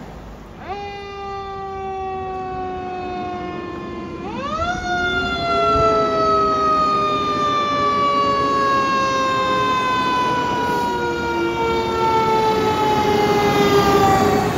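Federal Signal e-Q2B electronic siren on a fire engine, imitating the Q2B mechanical siren. It winds up quickly and coasts slowly down in pitch, then about four seconds in winds up again to a higher pitch and coasts down slowly.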